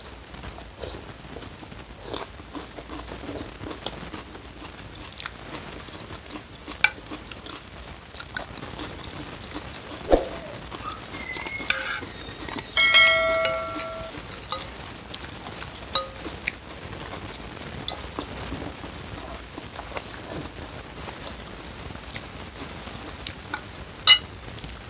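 Close-up eating sounds of a man having spicy noodle soup: chewing, with the spoon and fork clicking and clinking against the ceramic bowl. About halfway through a short electronic chime rings for about a second. Near the end comes a sharp clink of cutlery on the bowl.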